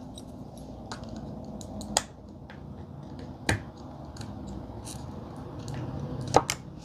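A few sharp little clicks from tweezers and fingertips working the locking latch of a flex-cable connector on a handheld radio's circuit board, a second or more apart, over soft handling noise.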